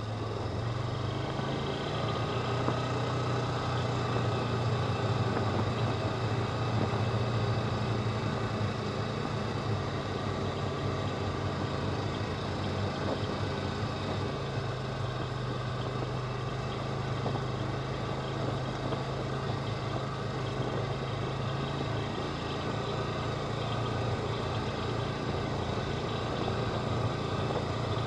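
Polaris Ranger 4x4 side-by-side's engine running at a steady low drone while it drives across a field, with the noise of the vehicle riding over the ground mixed in.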